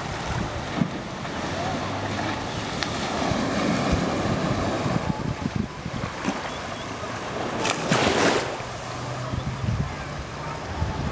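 Small sea waves lapping and washing at the water's edge, with wind buffeting the microphone; a louder rush of noise comes about eight seconds in.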